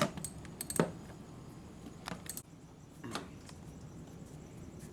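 A few sharp metallic clicks and clinks as a motorcycle seat and fuel-access latch is worked by hand. The loudest come at the start and just under a second in, with fainter ones about two and three seconds in.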